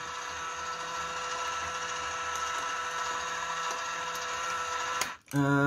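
Small electric motor of a plastic model four-cylinder engine kit running, turning the plastic crankshaft, pistons and valve gear with a steady whine. It cuts off with a click about five seconds in.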